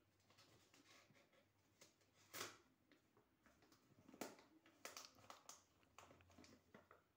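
Faint rustling and crinkling of a sheet of paper being folded and creased by hand, with a few sharper crackles, the loudest about two and a half seconds in and again about four seconds in.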